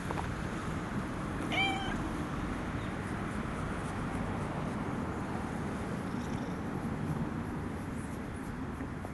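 A cat gives one short meow about a second and a half in, over steady background noise.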